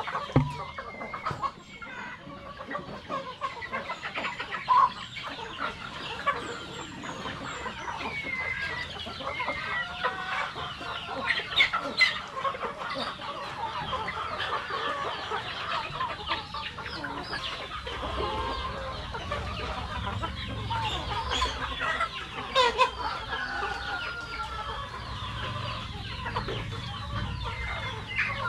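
A flock of Rhode Island Red chickens clucking and calling, many short calls overlapping without a break. A low steady hum joins in about two-thirds of the way through.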